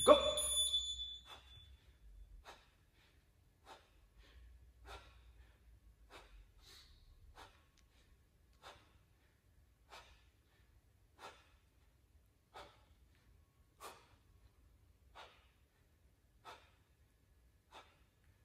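An interval timer gives a short high beep at the start of the set. Then a person breathes out in short puffs, one with each chair dip, about every second and a quarter.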